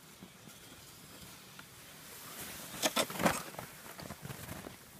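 Snow crunching and swishing under a child's ski sled as it passes close by, loudest in a few quick strikes around three seconds in.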